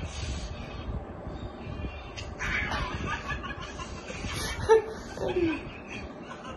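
A man's breathy snickering laughter, in short bursts. About three-quarters of the way through there is a single sudden sharp smack.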